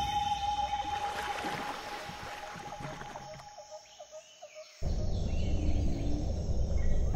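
A synthetic intro sound with a held tone fades away over about four seconds. Near the end a steady low rumble of a car driving, heard from inside the cabin, starts suddenly, with a few short high chirps above it.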